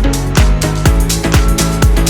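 Background electronic dance music with a steady four-on-the-floor kick drum, about two beats a second, and hi-hats.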